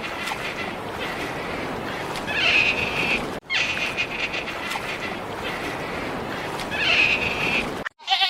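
An animal calling over a steady noisy background, with louder high calls twice. A short break about a third of the way in, after which the same stretch seems to repeat.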